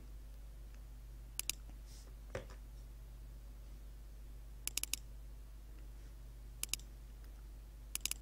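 Computer mouse button clicks, coming in quick pairs and short runs about four times, over a steady low hum.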